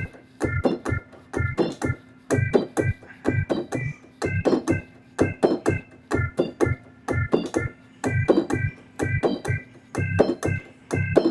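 Yamaha Montage M synthesizer playing an organ patch: a chord progression in short, rhythmic stabbed chords, about three a second, each with a sharp percussive click and a bass note under it.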